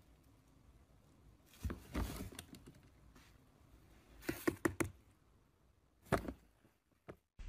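Plastic swing lid of a small bin knocking and clattering as a cat pushes through it: three short bouts of soft knocks, about two seconds apart.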